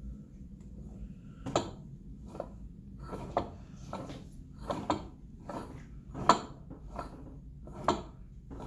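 Whipple 3.4 L supercharger being turned over by hand, giving about ten sharp clicks and knocks at uneven intervals from about a second and a half in: the sound of a unit with a bad bearing.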